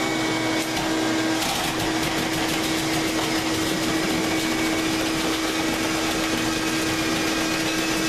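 High-power vacuum cleaner running steadily on a dryer vent's transition hose, a constant hum under the rush of air. From about a second and a half in, a louder crackling rush joins it as lint is sucked out of the duct.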